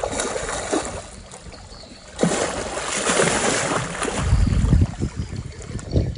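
Water splashing: a sudden rush of splashing about two seconds in that lasts a couple of seconds, with wind buffeting the microphone near the end.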